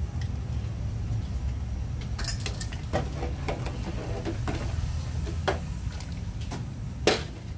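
Kitchen utensils and dishes clinking and knocking, scattered clinks starting about two seconds in, the loudest near the end, over a steady low rumble.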